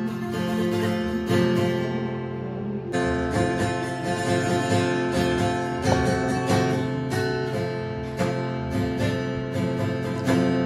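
Acoustic guitar strummed in a steady rhythm. About two seconds in, a chord is left ringing for a moment before the strumming picks up again.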